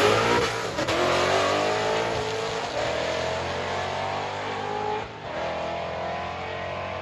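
A drag car's engine at full throttle, pitch climbing through the gears with shifts about a third and two thirds of the way in, growing fainter as it pulls away.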